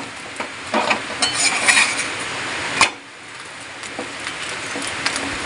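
A steel spatula scrapes and clicks against a hot iron tawa while pressing down a cooking roti, over a steady low sizzle; one sharper clack comes a little before the middle.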